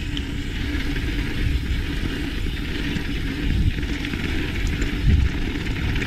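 Mountain bike rolling fast down a gravel trail: a steady rush of tyre noise on loose gravel, with wind on the microphone and a heavier thump about five seconds in.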